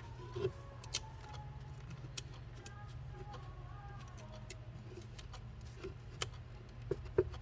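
Scattered small clicks and taps of tools and parts being handled, over a steady low hum, with a couple of sharper taps near the end.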